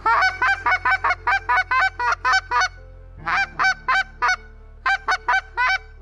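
Primos Honky Tonk polycarbonate goose call blown in quick clucks without throat. They come in three strings: a long run of about fourteen rapid clucks, then two shorter runs of four or five.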